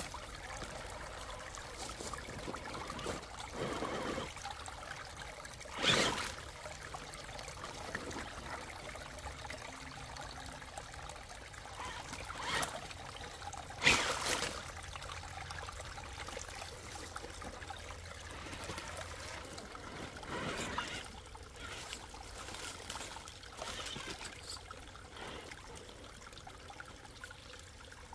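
Shallow creek water trickling, with a few sharp splashes as an RC rock crawler's tyres churn through the water and climb onto a log. The loudest splashes come about six and fourteen seconds in.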